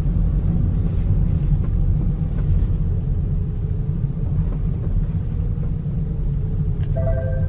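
Steady low rumble of a car driving, engine and road noise. A short higher tone sounds about seven seconds in.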